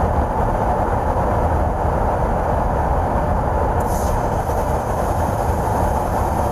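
Steady rushing noise of a KC-135 tanker in flight, airflow and engines heard over the boom operator's channel during boom refuelling, with a brief high hiss about four seconds in.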